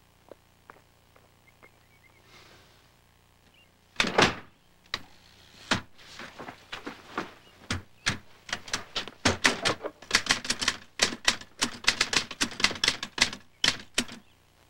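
A single loud thump about four seconds in, then a manual typewriter being typed on: irregular clacking keystrokes, several a second.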